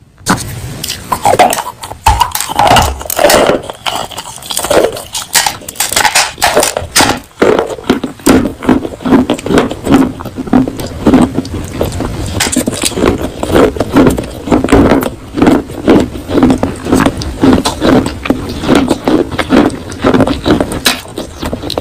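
Pieces of baked terracotta clay pot being bitten and chewed close to the microphone: sharp crunches throughout, settling into steady rhythmic chewing from about eight seconds in.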